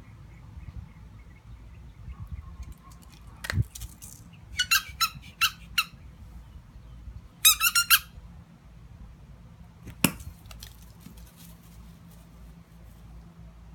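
KONG squeaky tennis ball being squeezed: four separate squeaks about a third of the way in, then a fast run of squeaks a couple of seconds later, the loudest part. A sharp click comes shortly before the squeaks and another after them.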